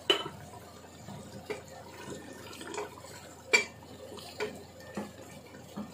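A spoon stirring thick meat curry in a cooking pot: soft wet squelching with scattered light knocks of the spoon against the pot, the sharpest about three and a half seconds in.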